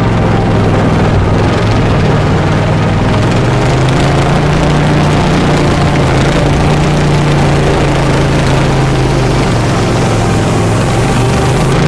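Racing lawn mower's engine running steadily, its pitch shifting slightly near the start and again near the end as the revs change.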